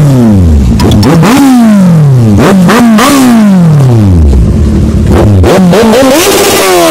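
Kawasaki Z800 inline-four motorcycle revved hard while standing, through an aftermarket exhaust: about four quick throttle blips, each climbing sharply and falling away, then a longer rev held near the end.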